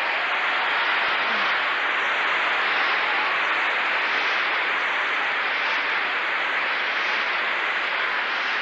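A large crowd applauding, steady and unbroken.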